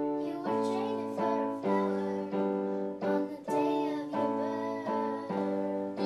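Electronic keyboard playing held chords, a new chord struck about every half second in a steady pulse, with a voice singing a melody over them.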